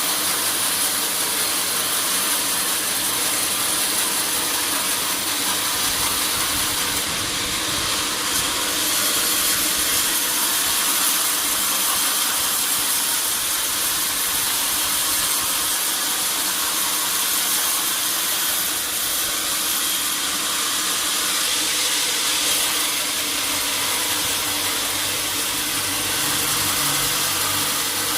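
Sawmill saw running steadily, a constant hissing whir with no breaks.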